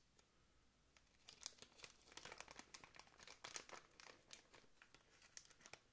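Plastic zip bag crinkling faintly as it is turned over in the hands, a run of irregular small crackles starting about a second in.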